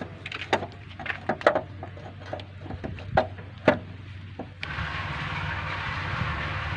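Sharp metal clicks and knocks as a new alternator is handled and pushed into place against its mounting bracket on the engine. A bit over halfway in, a steady low mechanical noise starts abruptly and runs on.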